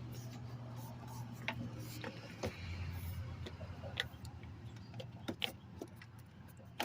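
Scattered light clicks and taps as a rubber door seal is pressed into its grooves along a car's door opening, over a steady low hum.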